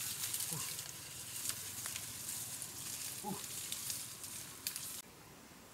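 Dry leaves and brush rustling and crackling as an animal moves through undergrowth, with two short pitched animal calls, one about half a second in and one a little after three seconds. The sound cuts off abruptly about five seconds in.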